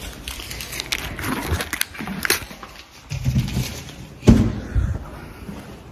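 Handling noise from a hand-held phone rubbing against a fleece jacket, with scattered knocks and clicks and one loud thump a little past four seconds in.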